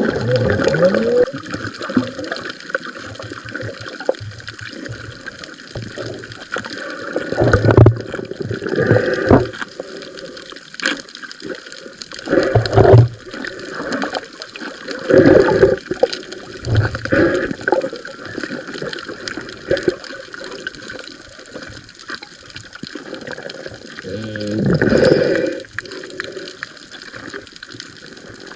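Water sloshing and gurgling around a snorkeler's camera, with louder gushing surges every few seconds.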